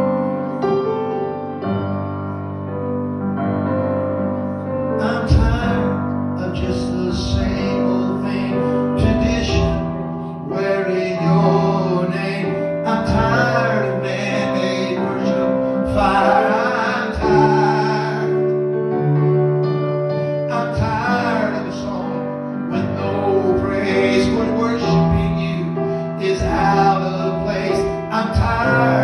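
Gospel song played on a keyboard, held chords at first, with a solo singing voice coming in about five seconds in and carrying on over the accompaniment.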